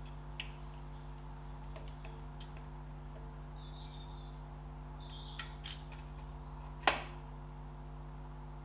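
A handful of sharp metallic clicks and taps, the loudest about seven seconds in, as a distributor is worked by hand in its housing on a Ferguson TED20 engine block, catching on the drive gear and refusing to seat. A steady low hum runs underneath.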